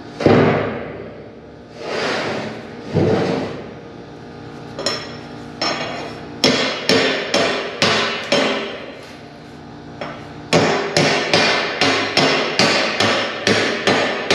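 Half-inch plasma-cut steel plate clanging as it is flipped and laid down, the loudest clang just after the start. It is followed by repeated hammer strikes knocking slag off its edges, the steel ringing after each blow. The strikes settle into a steady beat of about two a second in the second half.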